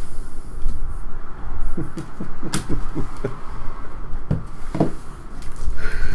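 Trading cards and plastic card holders being handled: scattered clicks and knocks over a steady low rumble.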